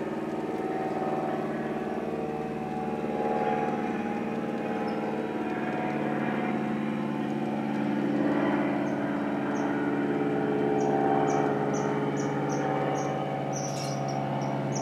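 N-scale model train running along the track, its small locomotive motor and gearing giving a steady hum that swells and fades a little. From about nine seconds in, short high chirps repeat a few times a second.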